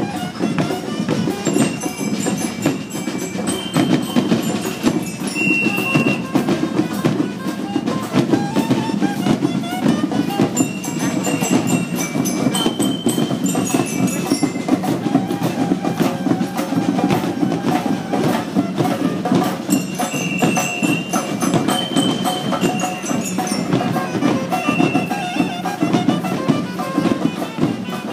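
Marching band playing: a steady drum beat with bell lyres ringing out short high notes of the tune.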